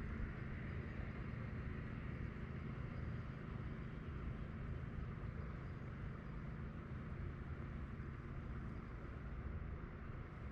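Steady rushing of flowing creek water, a low rumble under an even hiss, unchanging throughout.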